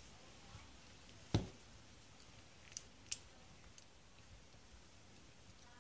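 A few faint metallic clicks and one sharper knock about a second and a half in, with two more clicks close together near three seconds, as the parts of a partly reassembled Ruger Security-Six revolver are worked by hand.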